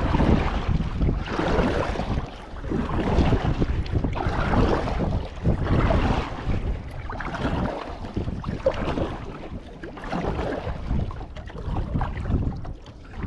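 Gusty wind buffeting the microphone, swelling and easing every second or two.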